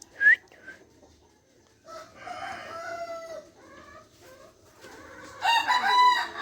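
A rooster crowing twice, the second crow louder and near the end, with a short sharp chirp just after the start.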